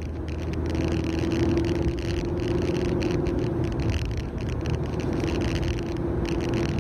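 Road and engine noise inside the cabin of a 2013 Ford Fusion S on the move: a steady low rumble and hiss, with a held hum that drops out briefly around the middle.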